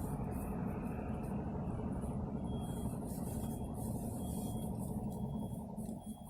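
Jeep Grand Cherokee driving: steady engine and road rumble that drops away near the end, with a faint short high beep repeating a little more than once a second from about halfway in. No distinct thud is heard.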